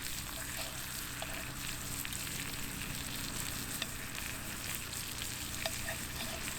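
Wagyu steak sizzling steadily on a hot iron griddle over a campfire, with scattered small sharp pops.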